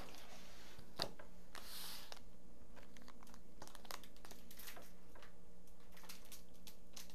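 Plastic wrapper of a nut-and-seed snack bar crinkling faintly in the hand as it is held and turned over, with a sharper click about a second in.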